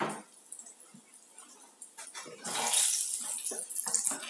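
A silicone spatula stirring thick mayonnaise-and-ketchup burger sauce in a stainless steel pan. It makes an uneven wet stirring and scraping noise that starts about halfway in, after a light knock at the very start.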